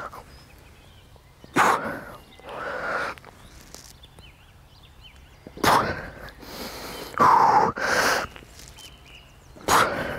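A man's forceful exhalations and strained grunts while he pulls through chin-ups: about six short, sharp bursts of breath, one every one to three seconds. The longest and loudest is a voiced groan about seven seconds in.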